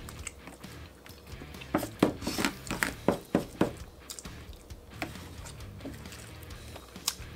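A person eating lasagna at close range: a run of loud, irregular wet chewing and smacking sounds clusters in the middle, with a quieter one near the end.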